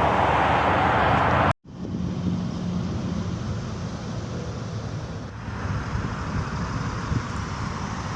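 Outdoor background noise of wind on the microphone and passing traffic: a loud rushing noise that cuts off abruptly about one and a half seconds in, then a steadier, quieter hum and rush.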